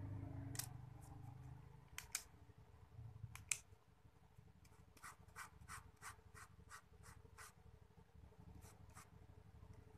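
Two plastic retractable ballpoint pens handled in the fingers, giving faint, sharp plastic clicks. A quick run of about eight even clicks, roughly three a second, comes in the middle, with single clicks before and after.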